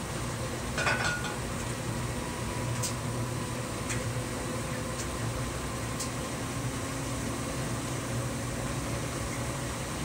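Brastemp Vantage top-load washing machine running, its basket and load turning fast: a steady motor hum, with a brief clatter about a second in and a few faint ticks after.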